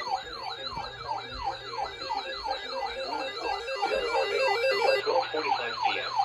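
Electronic siren-style alert tone: a yelping falling sweep that repeats about three times a second, sounded as the alert signal for a marine weather warning broadcast.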